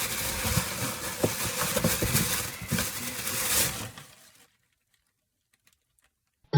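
Busy rustling and scratching noise, dense with small clicks, that stops abruptly about four seconds in, followed by silence.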